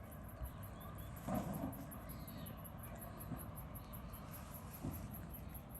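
Faint outdoor ambience with a high-pitched insect chirp pulsing steadily about seven times a second, over a low rumble, with a soft thump about a second and a half in.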